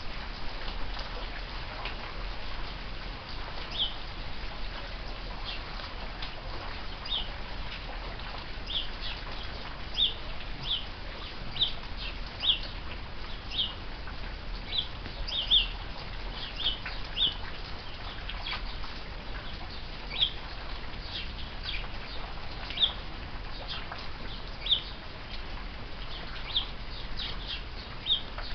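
Steady rain falling, with house sparrows giving short, sharp chirps, roughly one every second.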